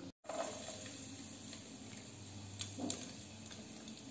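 Raisins frying in hot ghee in a pan, a faint steady sizzle, with a light knock of the wooden spatula against the pan a little before the end.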